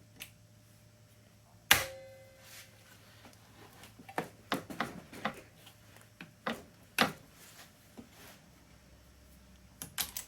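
Workbench handling of a clamped stainless-steel sheet and metal clamps: one sharp metallic clank about two seconds in that rings briefly with a few clear tones, then scattered lighter knocks and clicks.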